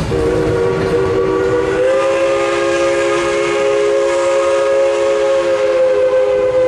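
Steam locomotive's chime whistle blowing one long blast, several notes sounding together as a chord, its top note lifting slightly about two seconds in.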